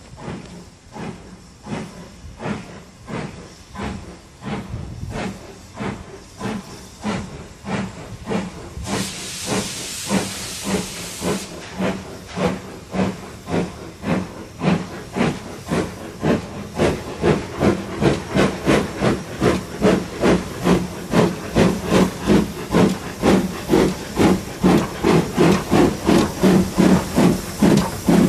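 BR Standard Class 2MT 2-6-0 steam locomotive No 78022 hauling a train, its exhaust chuffs quickening from about one and a half to about two and a half a second and growing louder as it accelerates towards and past the listener. There is a couple of seconds of sharp steam hiss about nine seconds in.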